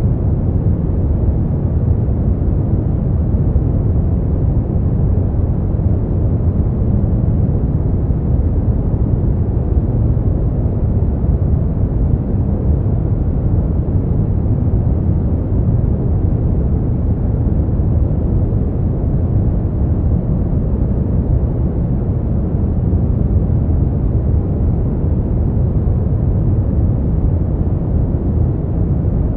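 Brown noise: a steady, deep rumbling hiss, strongest in the low end and with little treble, unchanging throughout.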